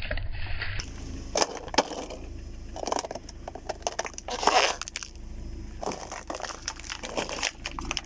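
Objects cracking and crunching under a car tyre as it rolls over them: a series of irregular snaps and crunches, the loudest about halfway through, over a low steady rumble.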